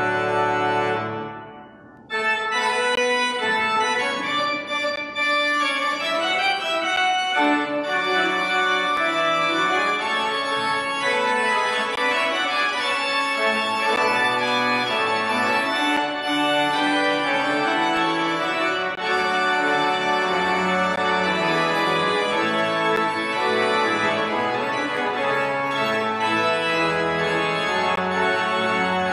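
Church organ playing: a held chord dies away about a second and a half in, then after a brief pause a new piece begins, with moving lines over sustained chords.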